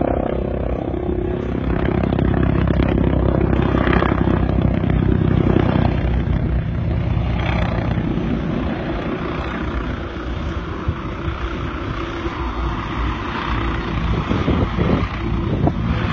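TUSAŞ T129 ATAK attack helicopter flying past, its main rotor beating fast and steadily over the whine of its twin turboshaft engines.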